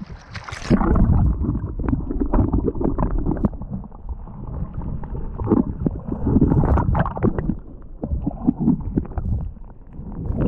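Splash as an action camera goes into the water just under a second in, then muffled sloshing and gurgling of shallow water heard through the submerged camera, with scattered small knocks.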